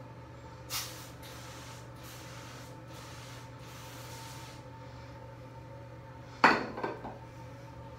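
Scrubbing and wiping at a bathtub, with soft swishing and rubbing strokes, then a sharp knock of something hard hitting the tub about six and a half seconds in, followed by two lighter knocks.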